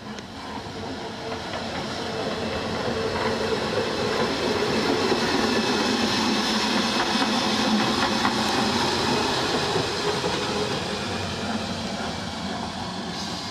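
Class 1099 narrow-gauge electric locomotive running past on the rails, getting louder over the first few seconds, loudest around the middle, then fading as it moves away.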